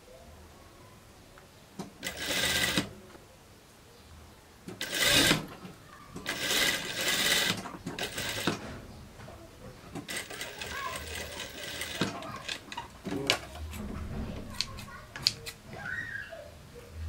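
Industrial lockstitch sewing machine stitching folded bias binding onto a neckline in several short bursts, with a longer steady run about ten seconds in. Sharp scissor snips near the end.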